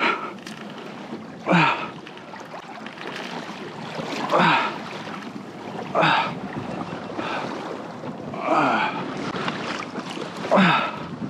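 Wind and sea water washing against a fishing kayak's hull as it is pulled along by a hooked fish. Six short louder bursts come about every one and a half to two seconds.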